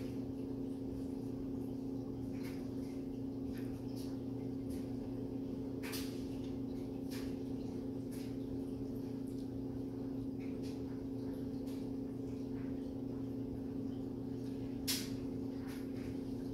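Steady low electrical hum of room tone, with scattered faint clicks and taps; the sharpest click comes about 15 seconds in.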